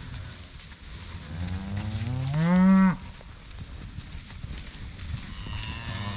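Beef cattle mooing: one long moo that rises in pitch and breaks off sharply about three seconds in, then a second moo starting near the end.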